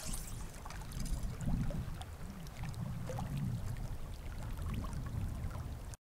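Lakeshore ambience: water lapping against the rocks, with a low, uneven rumble of wind on the microphone. All sound cuts off abruptly near the end.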